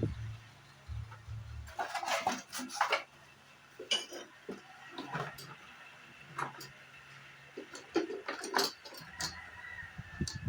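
Scattered clinks and knocks of metal tools and parts being handled, with a low hum in the first second or two.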